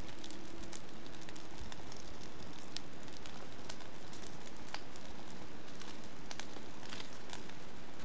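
A Swedish fire candle (a log split into sections and burning from the top) and kindling at its base crackling, with sharp pops scattered irregularly over a steady hiss.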